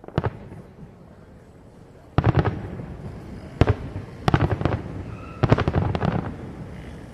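Aerial fireworks shells bursting: sharp bangs in about five quick clusters, each group made of several rapid reports, with a low rumble between them.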